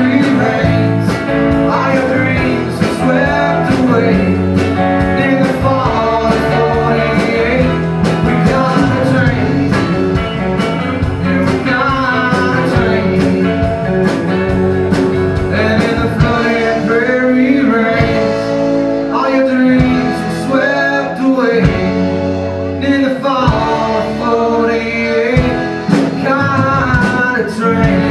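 Live band playing a country-rock song: singing over acoustic and electric guitars and a drum kit.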